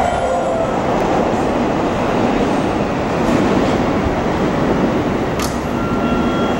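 Seibu 40000 series electric train standing at the platform, its running equipment giving a steady mechanical noise, with a short sharp hiss about five and a half seconds in.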